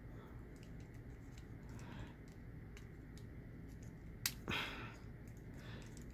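Faint clicks and scratches of a metal hobby knife's tip prying at a tight-fitting plastic calf-missile hatch on a plastic model kit's leg. Two sharper clicks come a little past four seconds in.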